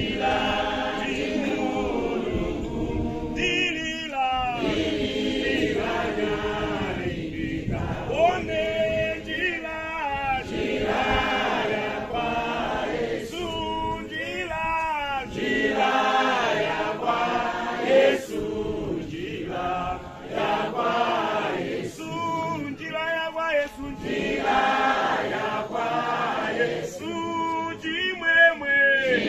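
A congregation singing a hymn together, many voices in sustained sung phrases with short breaths between lines.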